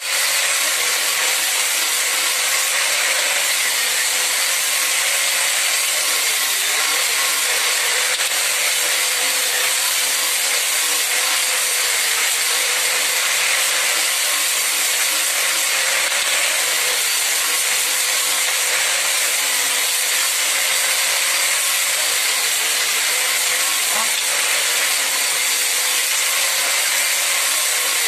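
Handheld angle grinders with cutting discs running through thin bamboo strips: a steady, unbroken hissing grind with a faint motor whine underneath.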